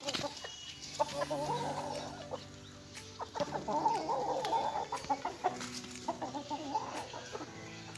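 Aseel chickens clucking in runs of short wavering calls, coming in clusters with brief lulls between.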